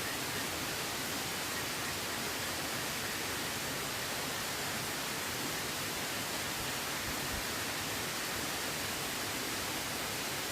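Steady, even rushing of water, with no distinct events standing out.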